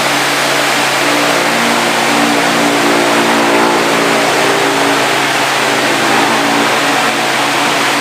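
Vitalex wall-mounted electric fan running: a steady rush of moving air with a low motor hum underneath.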